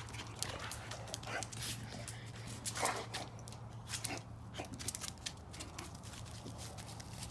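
A dog chasing a laser-pointer dot, its paws scuffling and clicking on the ground in many short irregular scrapes, with one brief, louder dog vocal sound about three seconds in.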